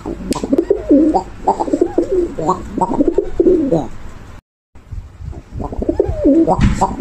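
Domestic pigeon cooing in runs of quick coos, the pitch wavering up and down. The sound drops out briefly about halfway through, then the cooing resumes.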